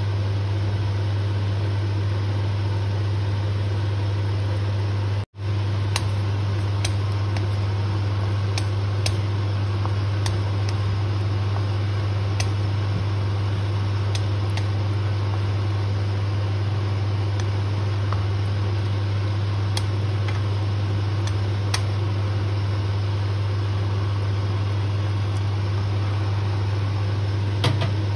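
Steady hum and whoosh of a kitchen fan running, with a few light clicks and knocks of a wooden spatula against the wok as the sauce is stirred. The sound cuts out for an instant about five seconds in.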